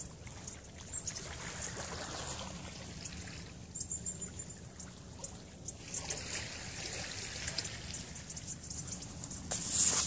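Small birds chirping in a tree, short high chirps and a quick twittering trill over a steady outdoor hiss, with a louder rush of noise near the end.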